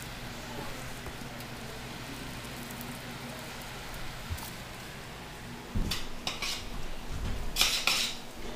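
Greens sizzling faintly in a hot stainless skillet. About six seconds in, metal tongs start knocking and scraping against the pan as the greens are turned, with a cluster of clatters near the end.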